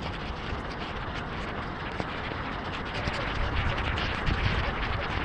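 Heavy rain drumming on a moving car, with many sharp drop impacts over a steady rumble of tyres and road spray, growing louder about three seconds in.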